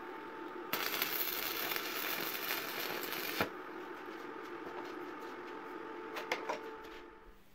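Stick (arc) welding with a coated electrode: a short weld run crackling and hissing for about two and a half seconds, starting under a second in and cutting off sharply when the arc is broken.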